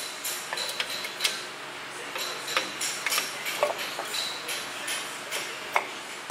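Irregular metallic clicks and clinks from a hand tool working the primary shoe's hold-down spring and retainer on a drum brake backing plate, as the last brake shoe is worked free. The sharpest clinks come about a second in and again near the end.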